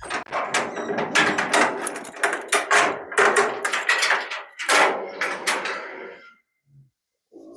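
Steel gate rattling and scraping in a dense run of metallic clanks that stops about six seconds in.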